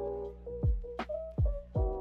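Background music with a steady beat: a kick drum and light percussion under held keyboard-like chords.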